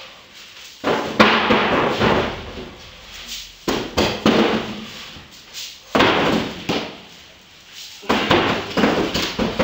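Several hard thumps and clatters of objects being moved and stacked, each trailing off in a second or so of scraping and rattling, with a slight echo off a metal-walled room.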